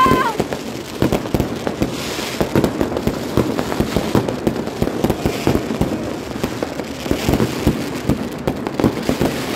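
Many fireworks and firecrackers going off at once, a dense irregular crackle of pops and bangs with no pause. A woman gives a short shout right at the start.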